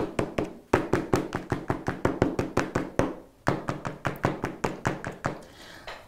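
Quick, evenly paced light taps of a hand dabbing on paper laid on a tabletop, about five or six a second, with a short pause a little past halfway.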